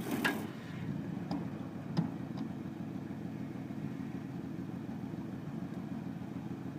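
Heavy vehicle engine idling steadily, with a short rush of noise at the start and a few sharp knocks about one and two seconds in.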